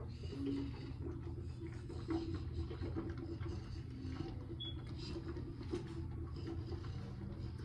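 Faint wet mouth sounds of pulling oil being swished around a closed mouth, over a steady low hum.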